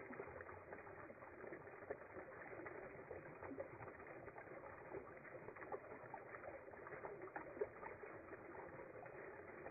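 Spring water trickling over rocks: a faint, steady babble made of many tiny splashes and drips.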